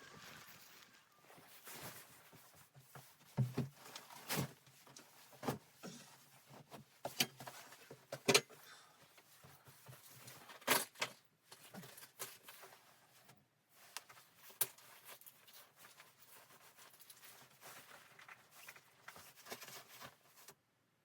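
Irregular knocks and clicks in a small room, some sharp and louder than the rest, spaced a second or two apart.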